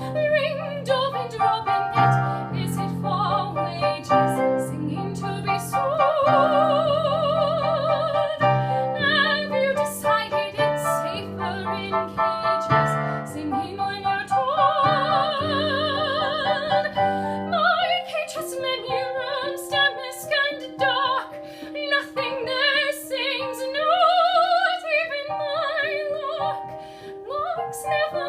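A classically trained soprano sings with a wide vibrato over piano accompaniment. About two-thirds of the way through, the piano thins to long held notes beneath the voice.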